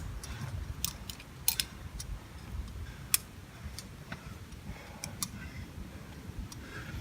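Irregular sharp clicks and knocks of a climber's gear and movement on the rock, about half a dozen, over a low rumble of wind and handling noise.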